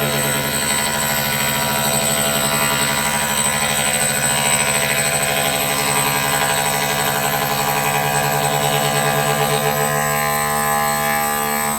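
CNC machine running: a steady mechanical drone made of several held tones, with a thin high-pitched whine above it.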